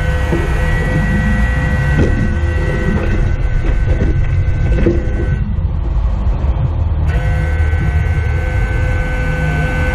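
Steady vehicle engine drone with a constant high whine over a heavy low rumble. The whine drops out briefly about halfway through.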